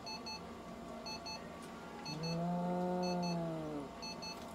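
Short electronic double beeps repeating about once a second. Near the middle a long, low drawn-out cry lasts nearly two seconds over them.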